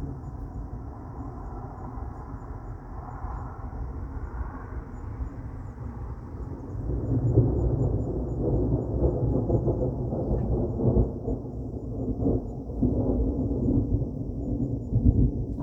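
Rolling thunder from a storm: a low rumble that swells louder about halfway through and keeps rumbling in uneven surges.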